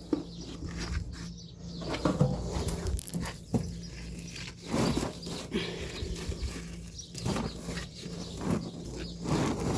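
Rotted material being pulled and broken apart by hand: scattered knocks, cracks and scrapes at irregular moments, over a faint steady hum.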